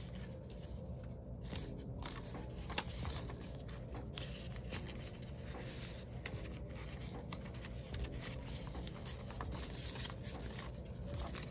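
Paper banknotes rustling and being shuffled by hand as cash is stuffed into a budget envelope, with scattered small crinkles and clicks over a steady low hum.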